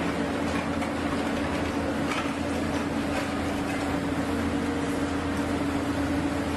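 Engine and hydraulics of a piling rig running steadily with a strong steady hum as its large auger is drawn up out of the steel casing, with a few light rattles about two to three seconds in.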